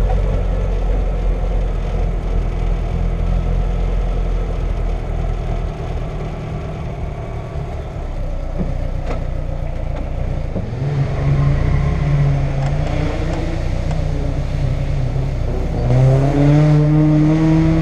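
Car engine at low speed, mostly a steady low drone, with two short rises in revs: one about eleven seconds in and another near the end.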